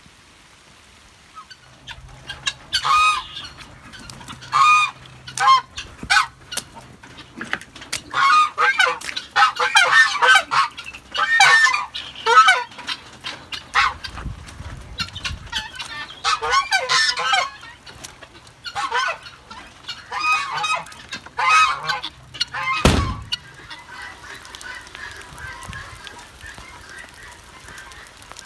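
Geese honking, a long series of repeated calls. One sharp thump near the end.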